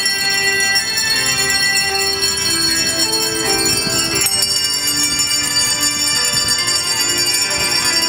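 A group of hand-held bells playing a tune together, each note ringing on and overlapping the next, with a bright shimmer of high overtones.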